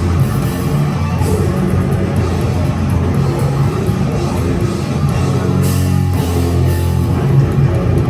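Death metal band playing live: electric guitars and drum kit in a loud, dense, unbroken wall of sound.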